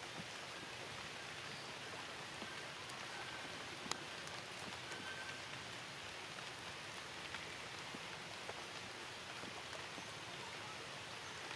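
Steady rain falling: an even hiss with scattered drop ticks, and one sharper tick about four seconds in.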